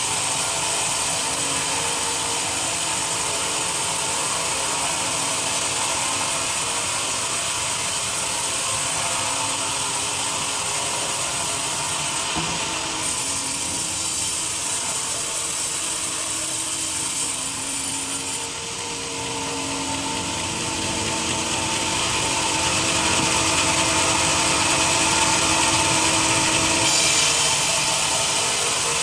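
Sawmill saw running and cutting lengthwise through a teak log, a steady noisy cut with faint humming tones. It dips briefly past the middle, then grows somewhat louder before easing near the end.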